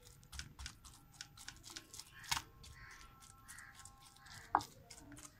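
Wooden pestle pounding soft cooked mustard greens in a wooden mortar: a quick run of dull strokes, with a couple of louder knocks partway through.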